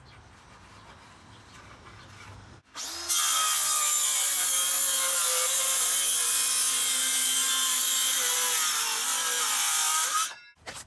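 Circular saw ripping along the edge of a spruce panel, the blade running steadily under load with a high whine. It starts about three seconds in and cuts off sharply after about seven seconds, before which there is only faint outdoor ambience.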